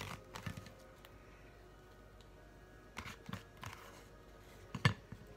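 Banana leaf being folded and handled around a parcel: short crackling rustles at the start and again about three seconds in, then a sharper knock near the end, the loudest sound.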